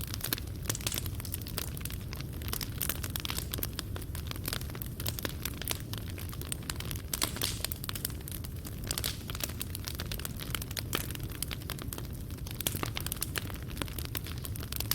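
Fireplace fire crackling: a steady stream of small pops and snaps from the burning coals over a continuous low rumble.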